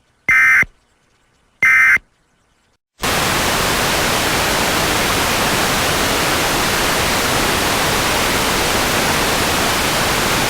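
Two short screeching digital data bursts about 1.3 s apart: the Emergency Alert System end-of-message SAME tones that close an alert. About three seconds in, a loud, steady hiss of static starts and holds.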